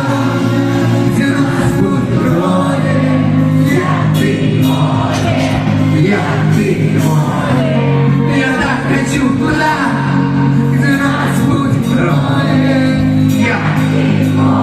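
Loud live concert music: a pop song with singing over sustained bass notes, recorded from the audience.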